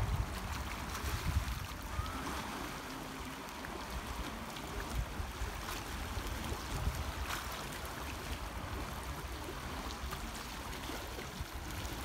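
Shallow seawater lapping and trickling over rocks at the shore: a steady wash with small splashing ticks. A low wind rumble on the microphone sits beneath it.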